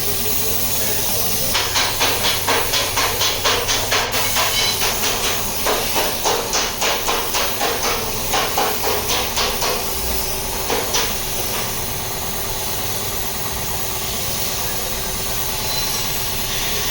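Hammer blows on car body sheet metal, a steady run of about four strikes a second with a short break, over a constant hiss: panel beating to straighten the crash-damaged front of a Suzuki Alto Lapin.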